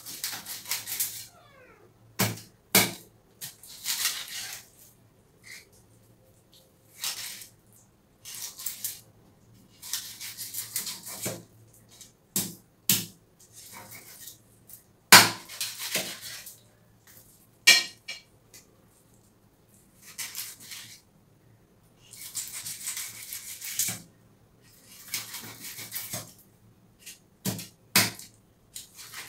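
A kitchen knife cutting a milkfish into steaks on a wooden log chopping block. Rasping slicing strokes through the skin and flesh alternate with sharp knocks as the blade hits the wood, at an irregular pace.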